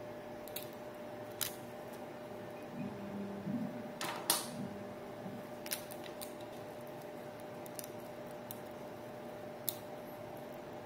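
Scattered small clicks and snaps of cured resin supports being broken and peeled off a resin 3D print's build plate, with a short run of creaks and clicks and the loudest snap about four seconds in. A steady low hum lies underneath.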